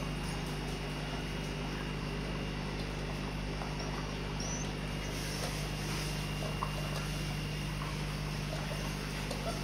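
White Swiss Shepherd puppies eating kibble from steel bowls: faint chewing with a few small clicks, over a steady low hum.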